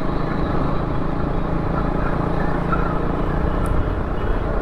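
Motorcycle engine running steadily while riding at low speed, with wind and road rumble over it.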